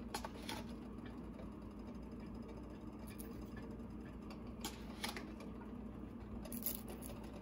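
Quiet kitchen room tone: a steady low hum, with a few faint soft clicks.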